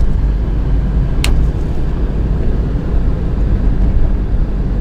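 Car driving along a road, heard from inside the cabin: a steady low rumble of engine and tyres, with a single sharp click about a second in.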